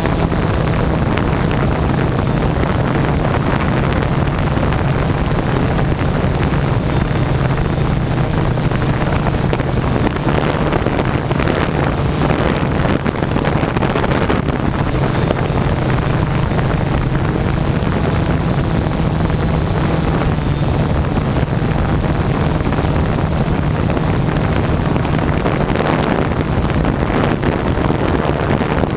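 Multirotor drone (DJI Inspire) in flight, its propellers and motors giving a constant low hum under a heavy rush of wind noise on the microphone.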